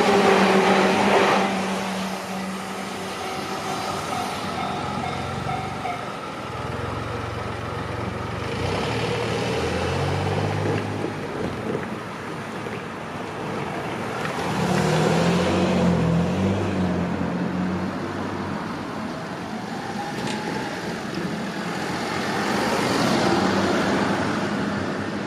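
Road traffic passing at a level crossing: cars and trucks drive by one after another, each engine swelling and fading. In the first second or so the sound of a train that has just passed dies away.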